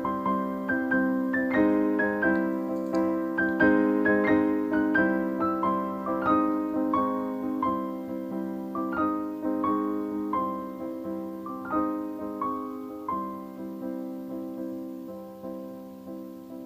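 Background piano music: a gentle melody of plucked-sounding notes with a steady pulse, growing quieter over the last few seconds.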